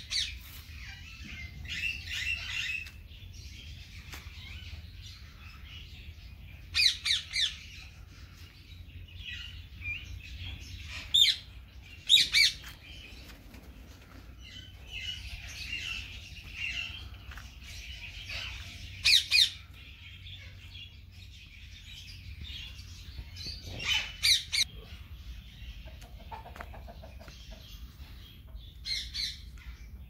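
Aviary birds calling: a steady background of chirping and chatter, broken every few seconds by loud squawks in quick groups of two or three.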